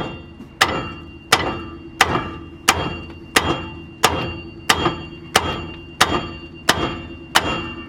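A hammer pounding on a steel front-suspension part, likely the ball joint just removed, in about a dozen evenly paced blows. Each strike rings briefly with a metallic tone.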